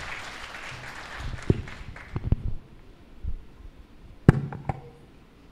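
Applause dying away over the first two seconds, then a handful of sharp thumps and knocks from a corded handheld microphone being handled. The loudest comes about four seconds in.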